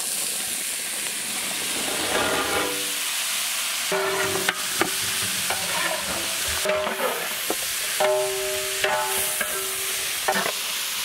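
Chopped vegetables sizzling in hot oil in a large metal pot, stirred with a long metal spatula that scrapes and clinks against the pot, some of the scrapes squealing.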